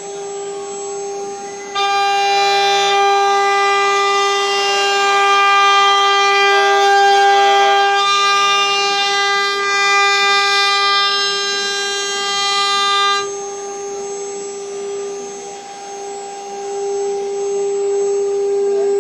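CNC router spindle running with a steady high whine. From about two seconds in until about thirteen seconds a louder, harsher layer of whine comes in and then cuts off suddenly.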